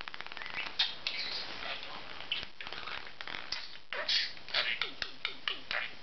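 A ping-pong ball bouncing to rest on a hard floor, its bounces coming quicker and quicker and dying out about half a second in. Then a budgerigar's short chirps and chattering, with light clicks as it pecks and pushes the ball.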